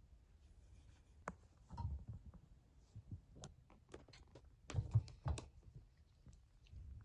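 Faint scattered clicks and taps, with a few louder knocks and soft thumps about five seconds in: kittens' paws batting and scrabbling at a toy mouse on a pet pen floor.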